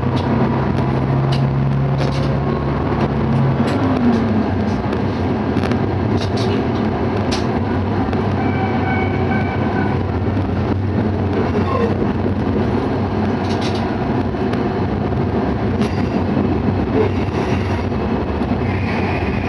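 Shimabara Railway diesel railcar running between stations, heard from inside the car: a steady rumble of engine and wheels on the rails with scattered clicks. A low steady engine tone fades out a few seconds in.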